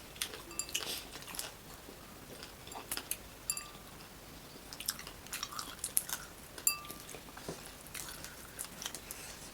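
Close-up chewing and crunching of fried crab in its crisp shell: scattered short crackles and clicks.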